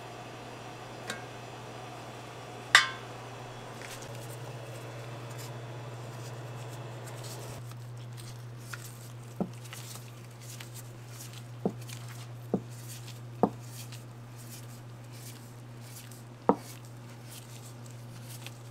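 Wooden trdelník spit and its steel rod knocking against the counter and a steel tray while it is handled and dough is wound onto it: one loud ringing metallic clank about three seconds in, then about five sharper, lighter knocks and soft taps in the second half. A steady low hum runs underneath.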